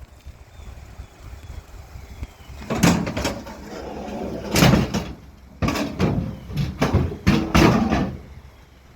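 Metal bicycles being handled and loaded into a vehicle, clanking and knocking in a string of loud bangs and clatters from about three seconds in until near the end.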